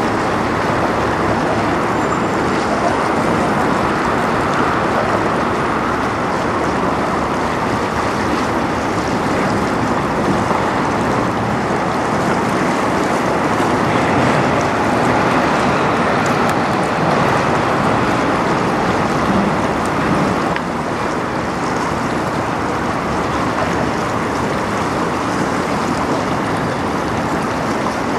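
Steady rush of fast river water, stirred by a passing 1,000-foot lake freighter's wake, mixed with wind on the microphone; the level dips slightly about twenty seconds in.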